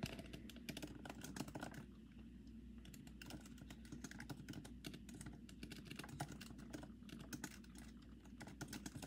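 Typing on a keyboard attached to an iPad: a run of faint, irregular key clicks as a note is typed out.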